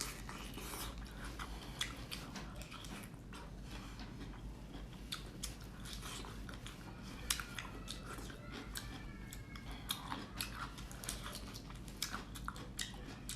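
Close-up mouth sounds of eating lemon-marinated prawns: irregular wet biting and chewing, with many small clicks and smacks.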